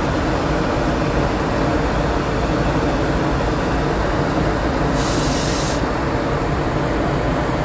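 Panama Canal electric towing locomotive (mule) running along its track beside the ship, a steady rumbling mechanical noise. A short hiss cuts in about five seconds in and stops under a second later.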